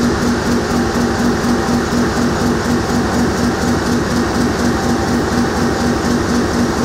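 Corrugated-board flexo folder gluer line with automatic prefeeder running at production speed, around 250 sheets a minute: a loud, steady mechanical clatter with a rapid beat of about four a second as the sheets feed through.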